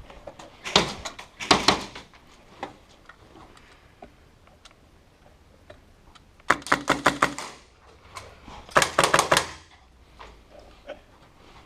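Airsoft guns firing in rapid full-auto bursts, each a quick string of sharp cracks: two short bursts about a second in, then two longer bursts of about a second each in the second half.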